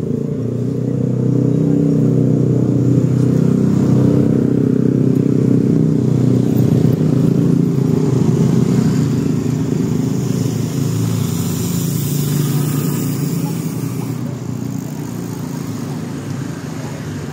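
A motor vehicle engine running close by, swelling in loudness over the first couple of seconds and easing off toward the end.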